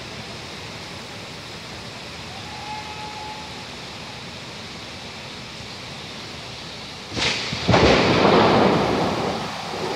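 Steady rain, then about seven seconds in a sudden crack of thunder, followed half a second later by a louder clap that rumbles and fades over the next two seconds.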